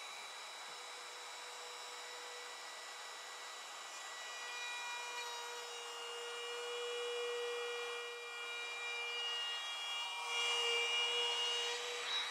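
Cordless Makita router running at speed and cutting a groove into a wooden drawer front: a steady high motor whine with the hiss of the bit in the wood. It grows louder in stretches as the bit bites, around the middle and again near the end.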